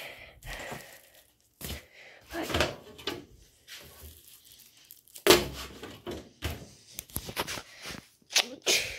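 Handling noise from a camera being carried around a kitchen: irregular rustling, clicks and knocks, with one loud thump about five seconds in.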